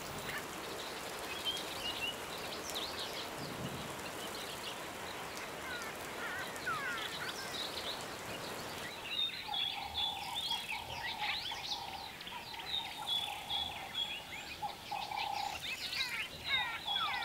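Wild birds chirping and whistling in short calls over an even background hiss. About nine seconds in, the ambience changes and a steady trilling starts at two pitches, one low and one high, under continued bird chirps.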